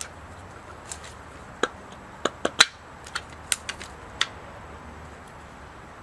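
A cluster of about ten sharp clicks and taps, like tools and alternator parts being handled and set down, over a steady low hum. The loudest click, about two and a half seconds in, rings briefly.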